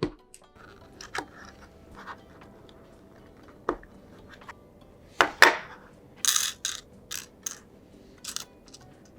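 Small plastic nail-kit pieces and their packaging handled on a tabletop: scattered sharp clicks and taps, two loud ones about five seconds in, then a quick run of short rustling noises.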